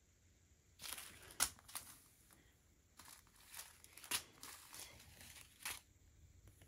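Small plastic zip-lock bags of diamond-painting drills crinkling as they are handled and set down: a string of short, sharp rustles that begins about a second in.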